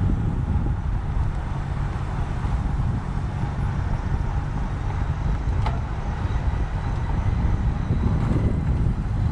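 Wind rush and road noise on the microphone of a road bike being ridden, a steady low rumble, with a single sharp click about five and a half seconds in.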